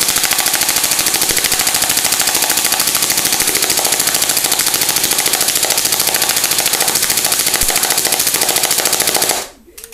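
Tokyo Marui MP5 airsoft electric gun firing one long full-auto burst of rapid, evenly spaced shots for about nine and a half seconds, with the BBs tearing into a cardboard box. The burst stops suddenly near the end.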